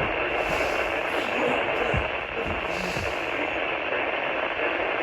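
Steady hiss of radio static with no program audio, broken by a few faint low thumps.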